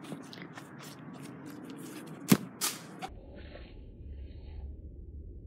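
A football kicked with one sharp thud about two seconds in, followed by a smaller knock just after. Then a low rumble with outdoor noise takes over.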